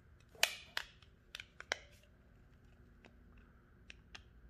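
Plastic battery cover of a Sony Ericsson W580i phone clicking as it is pressed and slid onto the back of the handset: a handful of sharp clicks in the first two seconds, then a faint one near the end. The cover has a tab broken off, so it does not latch properly.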